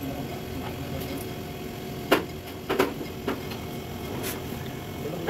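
Soft copper tubing being handled and routed around an AC compressor and condenser, knocking against the metal unit about four times over a couple of seconds.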